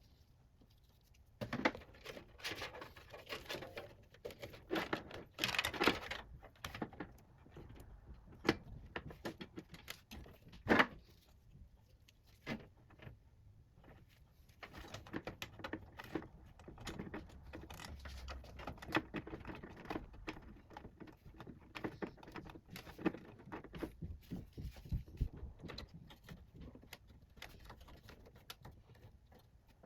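Hands handling computer parts during PC assembly: irregular clicks, taps and rustling, with a sharp click about eleven seconds in.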